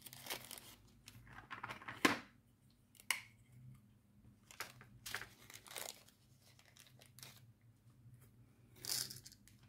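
Small plastic packets of diamond-painting drills crinkling and rustling as they are handled, in short, irregular bursts.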